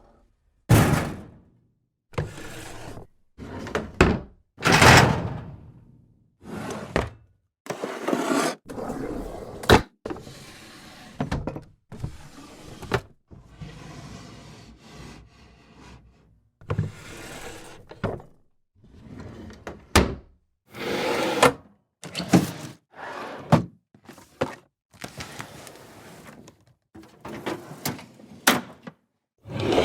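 A sequence of drawers sliding open and shut one after another, each slide a brief rumbling scrape that often ends in a sharp wooden knock as the drawer hits its stop.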